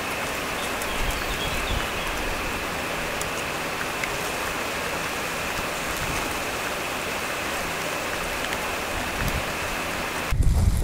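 Steady rushing noise of running water. A louder low rumble cuts in suddenly near the end.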